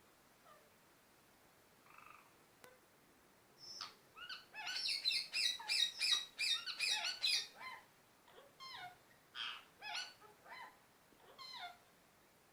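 Pet parrot calling: after a near-quiet start, a fast run of repeated calls, about four a second, begins about four seconds in. Several separate calls follow, spaced about half a second apart, until near the end.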